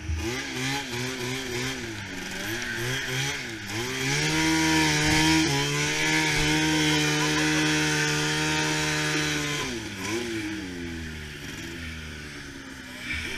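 Snowmobile engine under way, revved up and down several times, then held at steady high revs for about five seconds before dropping back to lower, uneven revs near the end.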